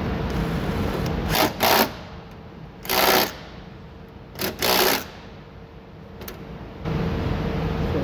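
DeWalt 12V cordless drill spinning a socket on the door latch screws in short bursts: two quick runs, then one, then two more.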